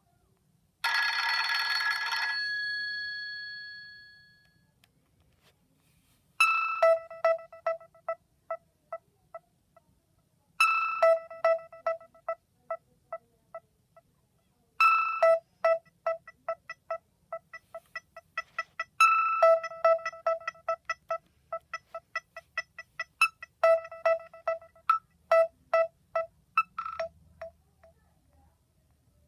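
Ringtones playing from a Nokia 7100 Supernova's loudspeaker. A short chord about a second in rings out and fades. After a few seconds' pause, a ringtone of quick staccato notes begins, its phrase repeating about every four seconds.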